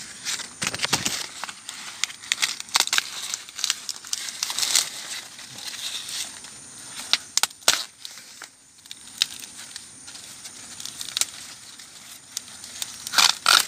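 Dry corn leaves and husks rustling and crackling in irregular bursts, the way they do when someone pushes through a standing cornfield, with a few sharper snaps near the end. Crickets chirr steadily underneath.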